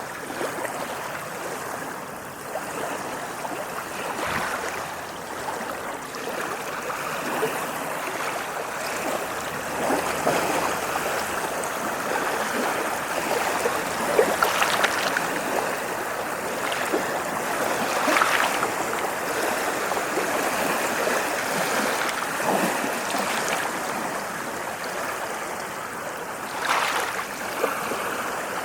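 Ocean waves washing onto a shore: a steady wash of surf with a few brief, louder splashes as waves break.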